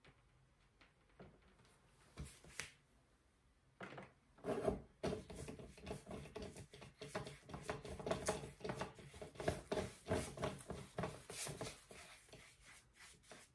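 Paintbrush scrubbing quickly back and forth across a stretched canvas, blending wet acrylic paint. It is a rapid, scratchy rubbing of many short strokes that starts about four seconds in.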